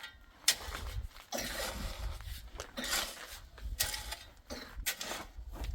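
Repeated scraping strokes of a hand tool working wet cement mortar, roughly one stroke a second.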